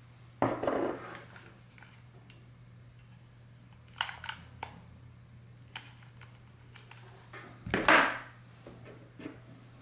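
Handling noise while a glue gun dispenses sealing wax onto a ceramic plate: a knock about half a second in, a few sharp clicks around four seconds in as the wax is pushed out, and a louder clatter near eight seconds, over a faint steady hum.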